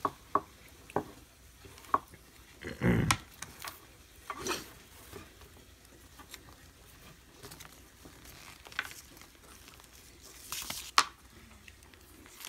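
Handling noise from a coiled braided hose and a plastic hose adapter being turned over in the hands: scattered light plastic clicks and knocks, with a duller thump about three seconds in and a sharp click near the end.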